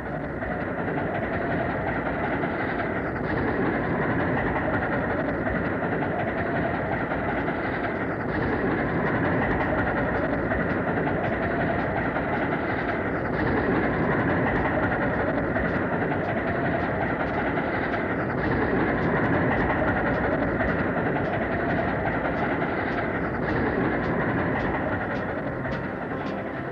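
Train cars rolling steadily over the track, a continuous rumble and rattle of wheels on rails.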